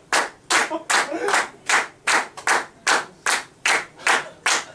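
Steady, rhythmic hand clapping, about two and a half claps a second: encore clapping calling for one more song.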